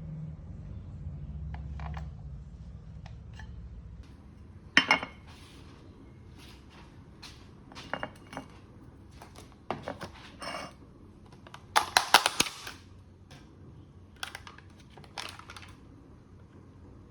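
Irregular clicks and clinks of small hard objects being handled, with a rapid cluster of clinks about twelve seconds in. A low hum runs under the first four seconds, then stops.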